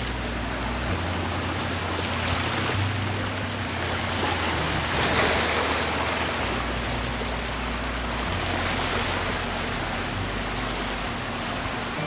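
Steady rushing of water, swelling louder about five seconds in, over a low drone whose note shifts every couple of seconds.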